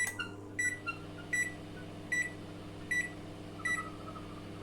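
BGH microwave oven switching on suddenly and running with a steady hum, on a test run after its open high-voltage diode was replaced. Five short, high beeps sound over the hum, evenly spaced a little under a second apart.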